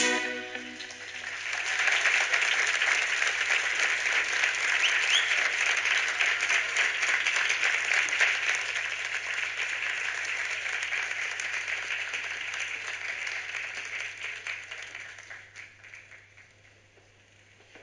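The last notes of the song die away in the first second, then a theatre audience applauds steadily, the clapping fading out about fifteen seconds in.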